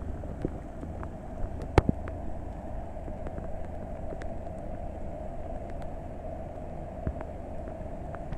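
Steady rush of a flooded arroyo running fast in a rainstorm, over a low rumble, with scattered clicks and one sharp knock just under two seconds in.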